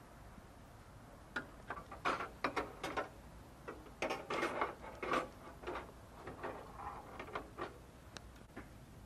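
Flat steel kebab skewers clinking and scraping against the metal rim of a charcoal grill as they are handled and laid across it: a run of irregular light metallic clicks, starting about a second in and thinning out near the end.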